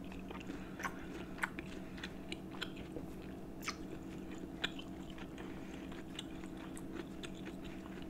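Close-miked chewing of tender beef pepper steak with the mouth closed: soft, irregular wet mouth clicks, a few each second, over a steady low hum.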